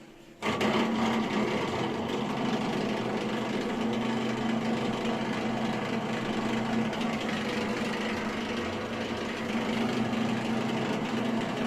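Bosch Maxx 5 washing machine's drain pump running, starting abruptly about half a second in: a steady hum over a harsh noise. This is the sound of a pump with a broken impeller, which leaves the machine unable to drain.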